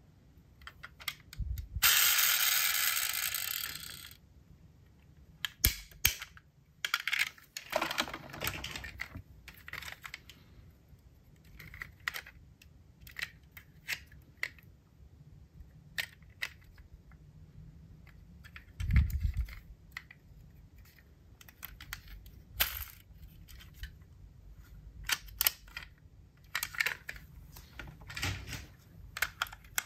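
Die-cast metal toy cars and their packaging being handled: scattered light clicks and taps, a loud two-second scraping burst near the start, and a dull thump about two-thirds of the way through.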